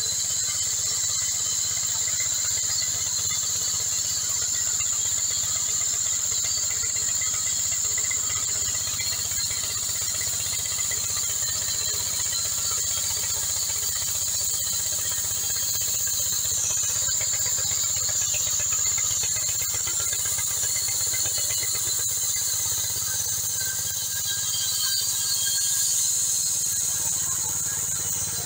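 Portable horizontal band sawmill running and cutting through a log: a steady high-pitched hiss and whine from the band blade over a low hum from the drive.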